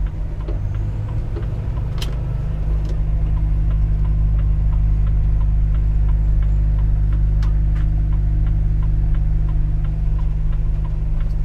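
Volvo FH 460 truck's 13-litre six-cylinder diesel engine running steadily as a low drone, with one sharp click about two seconds in.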